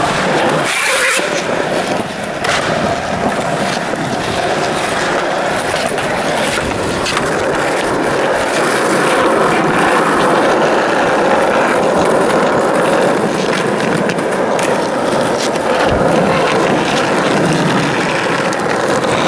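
Skateboard wheels rolling over concrete and rough asphalt, a loud, steady rolling noise with occasional sharp clacks of boards and trucks.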